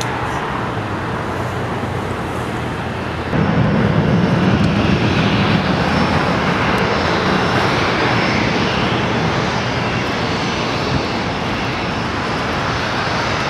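Boeing 777 twin jet engines spooling up to takeoff thrust for the takeoff roll. A steady jet noise jumps louder about three seconds in, with a heavy low rumble, then eases a little as the aircraft moves away down the runway.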